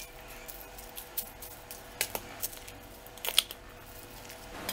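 Metal spoon stirring diced raw mango pickle in a metal pan: a series of irregular sharp clinks of the spoon against the pan, the loudest a cluster about three seconds in.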